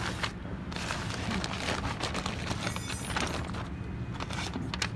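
Clear plastic packaging of a new ABS wheel speed sensor kit crinkling and rustling in irregular, crackly bursts as it is handled and opened by hand.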